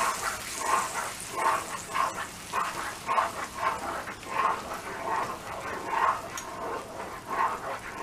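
Spatula stirring boiling jaggery syrup with milk in a pan, the strokes and bubbling coming in short bursts about twice a second.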